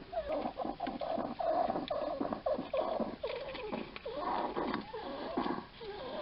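Hedgehog breathing noisily: a fast, continuous run of squeaky, wheezy breaths, several a second. The noise seems to be caused by scarring on its lungs from an earlier respiratory infection or lungworm.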